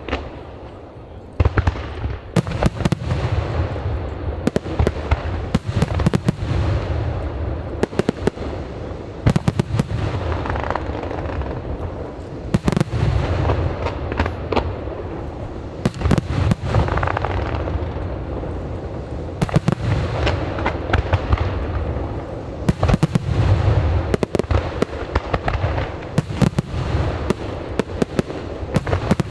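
Aerial fireworks bursting in quick succession, deep booms overlapping with sharp cracks and crackle. The booms come every second or so, with a brief lull about a second in.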